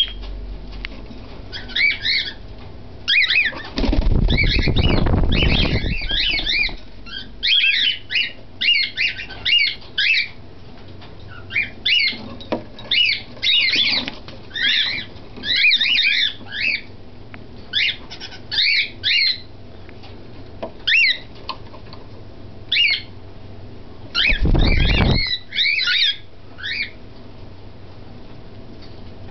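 Six-week-old cockatiel chicks calling in clusters of short chirps, with wings flapping loudly twice as a chick takes off: a longer flurry a few seconds in and a shorter one near the end.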